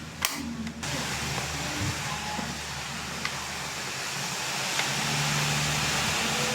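A sharp click just after the start, then a steady airy whooshing noise that grows a little louder about five seconds in.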